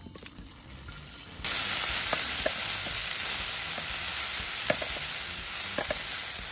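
Bean sprouts, garlic chives and carrot frying in hot oil in a frying pan: a loud sizzle starts suddenly about a second and a half in, as the vegetables hit the pan, and holds steady. Metal tongs click against the pan a few times as the vegetables are tossed.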